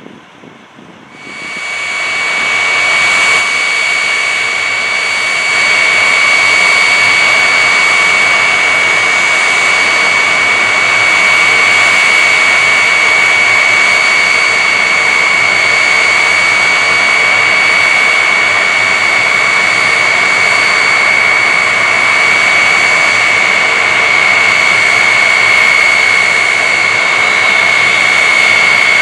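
Lockheed TriStar's Rolls-Royce RB211 turbofans running close by: a loud, steady roar with a high, even whine that holds without change. It starts abruptly about a second in.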